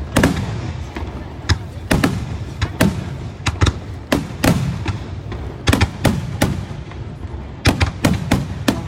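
Aerial fireworks bursting: a continuous run of sharp booms, often in quick pairs, roughly two a second, each trailing off in a rumbling echo.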